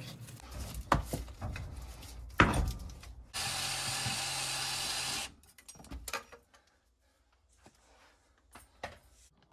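Knocks and clicks of parts and tools being handled, then a small power tool runs steadily for about two seconds, starting and stopping abruptly. A few faint clicks follow.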